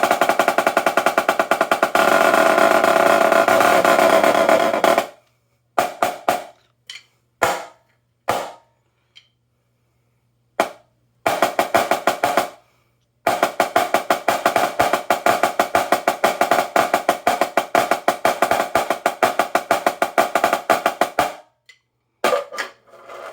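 Dynasty 14x10 marching snare drum played with sticks: a buzzing roll for about five seconds, a handful of single strokes, then a long roll of about eight seconds. The top head is tuned very high, and the snare guts are tightened just enough to still move against the bottom head.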